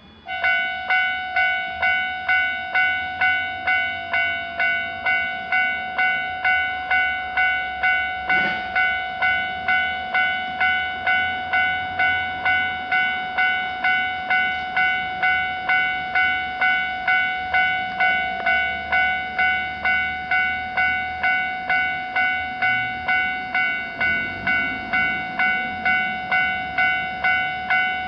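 Railroad crossing warning bell starting up and ringing kan-kan, about two strokes a second, steady and loud. A single sharp knock about eight seconds in.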